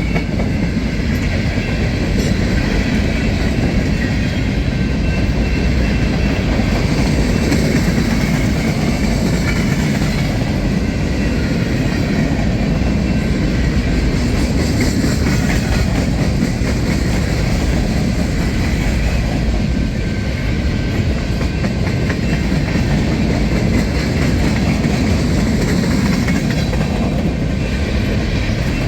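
A train rolling by close at hand: a steady, loud rumble of railcar wheels on the rails.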